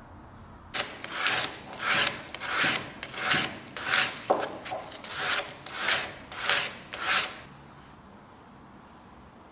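Abrasive strokes by hand on a wooden tool handle, about ten rhythmic scraping passes, roughly one and a half a second, stopping about three-quarters of the way through.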